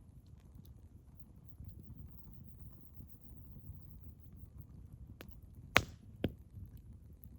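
Wood fire burning with a low steady rumble and faint scattered ticks, then three sharp pops of crackling firewood a little after five seconds in, the second one loudest.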